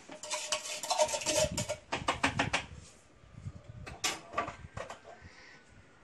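Metal utensil scraping and tapping the inside of an empty tin can in quick strokes, knocking leftover sugar out into a blender jar. Then a few single clinks about four seconds in.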